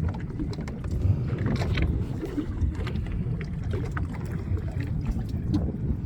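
Small fishing boat under way: a steady low rumble of the boat and water, with wind on the microphone.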